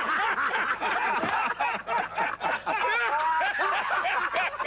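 Audience laughing: many voices laughing at once in a steady, continuous wave of laughter at a punchline.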